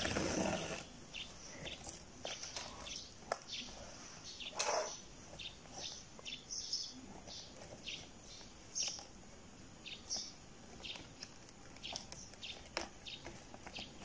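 A yarn needle and yarn being drawn through two crocheted panels as they are sewn together: faint, irregular swishes with a few light clicks.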